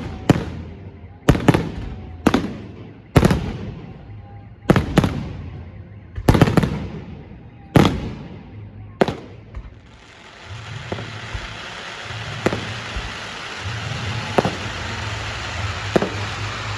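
Fireworks going off: about ten sharp, loud bangs, roughly one a second, each echoing away. About ten seconds in they give way to a steady hiss with a few fainter bangs.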